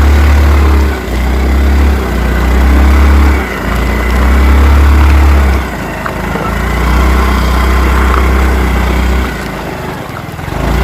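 Small single-cylinder scooter engine running steadily, with heavy wind buffeting on the microphone coming and going in gusts.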